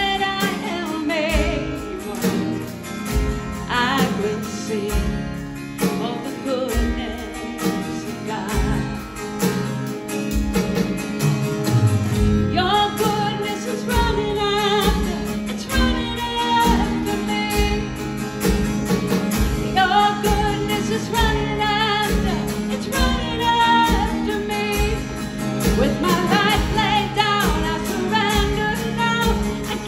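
Worship music: a sung melody over instrumental accompaniment with a steady beat.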